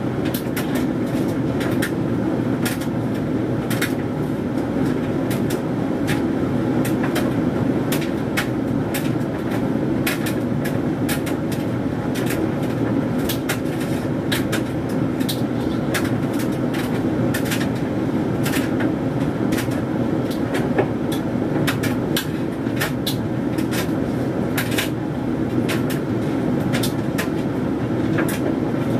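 Hoover Dynamic Mega 10kg condenser tumble dryer running mid-cycle on a low heat: a steady hum of the drum and fan, with frequent irregular clicks and taps from the wet synthetics load tumbling in the drum.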